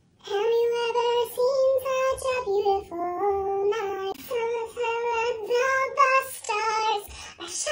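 A woman singing a melody alone, in a high voice with held notes and no accompaniment.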